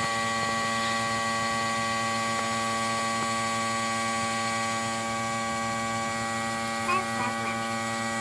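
Electric air compressor running, a steady hum with a constant pitch.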